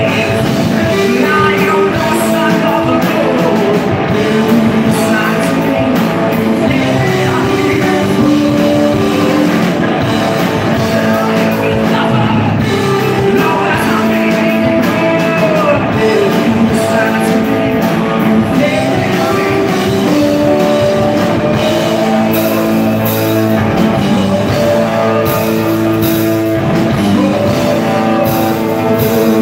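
Live rock band playing: electric guitars, keyboard and drum kit, with a lead singer singing over them.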